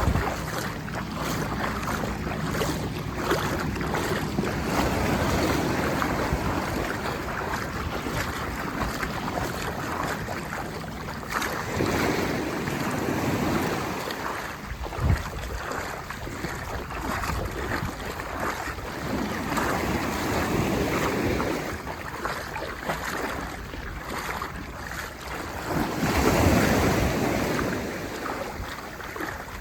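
Small sea waves breaking and washing in the shallows, with wind buffeting the microphone. The surf swells louder about twelve seconds in and again near the end.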